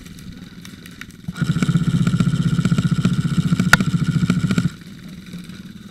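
Airsoft electric gun firing one long full-auto burst of about three seconds: a rapid, even buzz of shots that starts and cuts off abruptly. Faint scattered clicks of other shots come before and after it.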